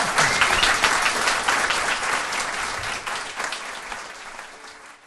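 Audience applauding with dense clapping that dies away over the last few seconds.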